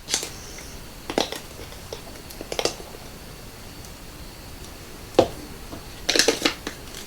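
Small clicks and taps of a spice jar and metal measuring spoon being handled while ground cumin is measured out, ending in a short run of quick rattling ticks.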